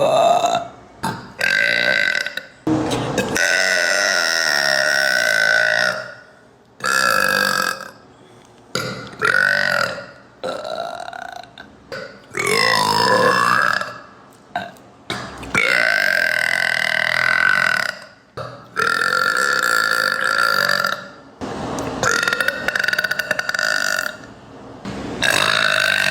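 Women belching loudly, more than a dozen burps one after another with short gaps, several drawn out for two or three seconds with a clear pitch.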